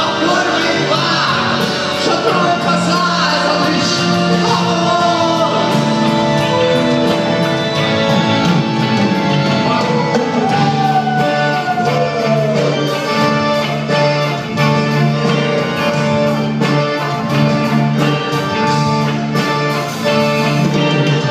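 Rock band playing live in a large hall, heard from the audience: electric guitars, keyboards and drums with sustained chords and a gliding melody line on top.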